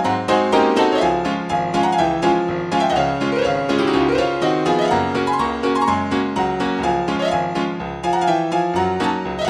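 Piano music: a silent-film accompaniment score with a steady run of quick notes.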